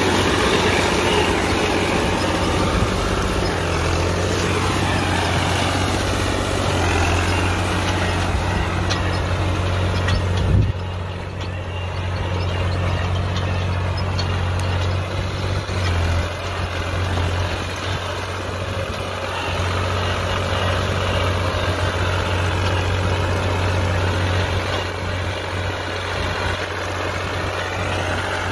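Farm tractor's diesel engine running steadily under load while pulling a cultivator through dry ground, with a short knock about ten seconds in.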